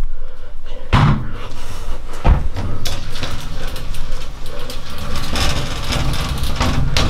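Two knocks about a second apart, then steady rustling and scuffing close to the microphone of a handheld camera being jostled.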